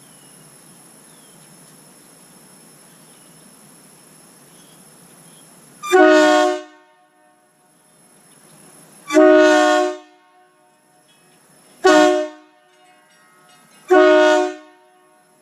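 Nathan Airchime K2 train horn, with only its two raised-letter bells 1 and 2 sounding, blown in four short blasts a few seconds apart. Each blast is under a second long and ends in a quick fall-off.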